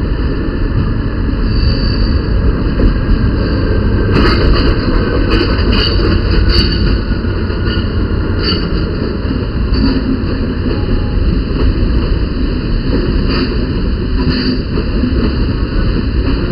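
An SNCF diesel locomotive running loud and steady as it hauls a train of Corail coaches past, followed by the rumble of the coaches rolling by on the rails. A run of sharp clicks comes about four to seven seconds in.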